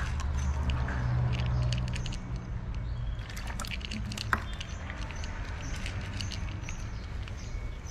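Cats eating cat food, chewing and crunching in rapid, irregular clicks, with one sharper click about four seconds in. A low background rumble runs underneath.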